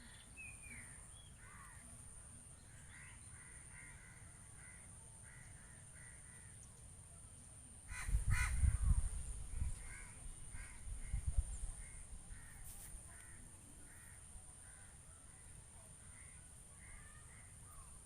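Crows cawing repeatedly in short runs of calls. About eight seconds in there is a louder burst of low rumbling with a few sharp knocks, and another near eleven seconds.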